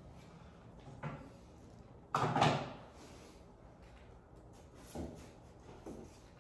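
Tool-handling noise from a long metal straightedge being taken up and set against the wall: a light knock about a second in, a louder clatter lasting about half a second just after two seconds, then two softer knocks near the end.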